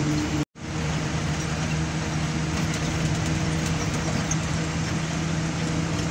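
Steady drone of an Ashok Leyland Ecomet truck's diesel engine and tyre noise, heard inside the cab at highway speed. The sound cuts out briefly about half a second in, then carries on unchanged.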